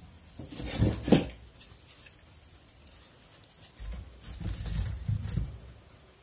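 Split firewood logs knocking and scraping as they are laid into the firebox of a sheet-metal wood stove onto the embers: two knocks about a second in, then a longer run of knocks and scraping from about four seconds in.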